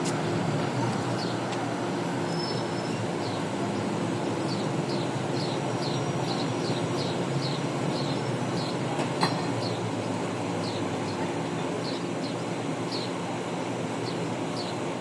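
A steady low rumble with a faint hum in it. Short, high, falling chirps from small birds repeat over it, and there is a single sharp click about nine seconds in.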